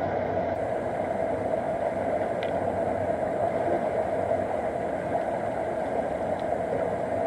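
Mountain river water rushing over boulders into a rock pool, a steady, even rush.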